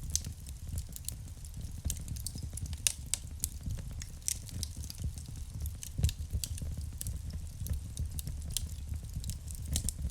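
Wood fire burning in a fireplace, crackling with many small irregular pops over a low steady rumble; one louder pop comes about six seconds in.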